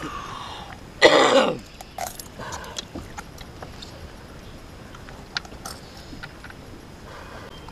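A person's short, loud cough-like grunt about a second in, falling in pitch. Around it come scattered light metallic clicks of pliers on a lure's hooks as a musky is unhooked in the landing net.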